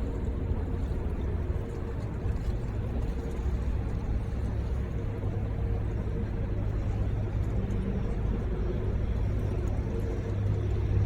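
Steady low rumble of city traffic, with a faint steady engine hum over it.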